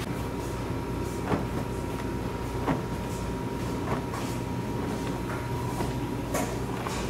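Steady hum of noodle-making machinery running, with a light knock recurring about every second and a quarter.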